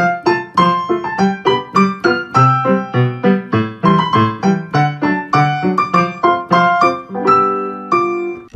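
Background instrumental music led by piano: a bright tune of short struck notes, about four a second, over a low bass line.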